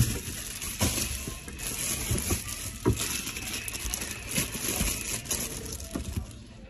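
Plastic bags rustling and crinkling as groceries are handled, with a scatter of light knocks from items being set down on wire shelving. The loudest knock comes right at the start.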